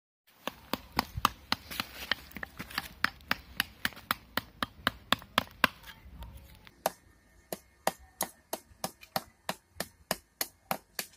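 Replica Neolithic copper axe, a copper blade lashed into a wooden haft, chopping into a small piece of wood on a stump. Quick, light, sharp strikes come about three or four a second, a little slower in the second half.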